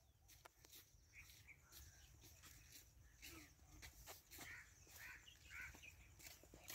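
Near silence, with a few faint, short, chirp-like animal calls about halfway through and scattered faint clicks.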